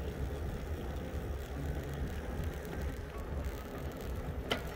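Riding noise from a moving e-bike: a steady low rumble of tyres and air moving past, with a single sharp click near the end.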